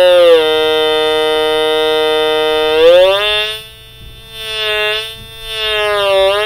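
Homemade analog synthesizer, a stepped tone generator in the style of an Atari Punk Console, sounding through its built-in speaker: a loud, buzzy electronic tone that drops a little in pitch shortly in and holds, slides up about three seconds in and fades down, then comes back and wavers up and down in pitch near the end as its pitch button is worked.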